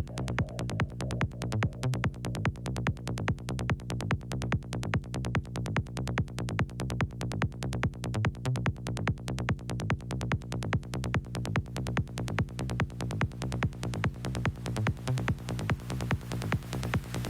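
Techno music from a DJ set: a steady, driving electronic beat over a sustained bass line, with fast regular percussion on top.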